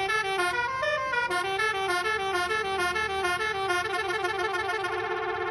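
Telolet basuri multi-tone bus horn playing a fast melody of short stepped notes, turning into a rapid warbling run near the end.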